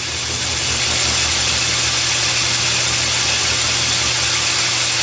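Atlas lathe cutting the face of a cast iron engine cylinder with a carbide insert: a steady hiss of the cut over the machine's constant hum. It is running at a speed just turned down to cure tool chatter.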